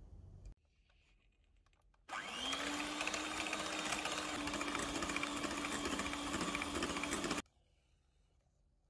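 Electric hand mixer beating eggs and sugar in a glass bowl. The motor starts about two seconds in, rises briefly in pitch as it spins up, runs steadily for about five seconds, then stops suddenly.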